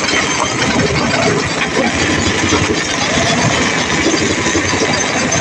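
Heavy machinery at a stone-crushing or excavation site running steadily, a continuous loud engine-and-machine noise with a fast, even pulse.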